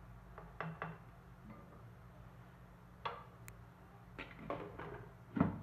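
Wooden spatula knocking and scraping against a pot of simmering curry in a few short clicks, then a louder clack about five seconds in as a glass lid is set on the pot, over a faint steady low hum.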